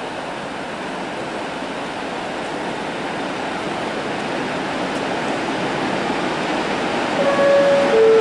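Diesel locomotive drawing into the platform, its running noise growing steadily louder as it approaches. Near the end its two-tone horn sounds briefly, a higher note followed by a lower one.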